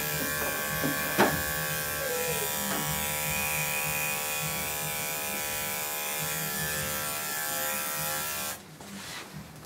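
Andis five-speed electric dog clipper with a 40 blade running with a steady buzz as it shaves a dog's leg, switched off near the end.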